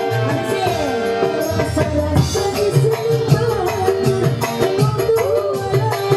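Live dangdut band: a woman singing into a microphone over an electronic keyboard and kendang hand drums keeping a steady beat.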